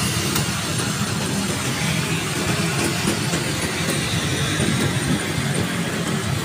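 Honda PCX scooter riding at about 25 to 30 km/h, heard from the rider's seat. Its engine, tyre and wind noise blend into one steady, even mix as it gently picks up speed.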